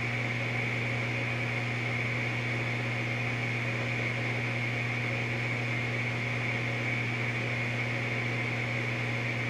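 Gas furnace draft inducer blower running steadily with a low hum and a faint high whine, on a call for heat forced by jumping the thermostat terminals.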